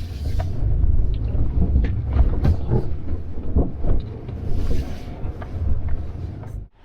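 Off-road truck driving slowly over a rough dirt trail: a heavy, uneven low rumble with scattered knocks and rattles as the vehicle jolts, cut off abruptly near the end.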